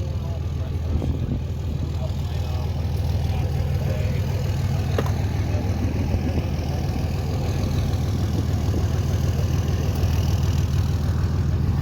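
Car engine idling steadily, growing slowly louder, with a brief click about five seconds in.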